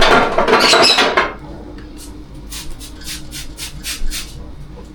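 Kitchen cleaning noises: a loud rubbing scrape for about the first second, then a quick run of light clicks or clinks, as of dishes or fridge parts being handled.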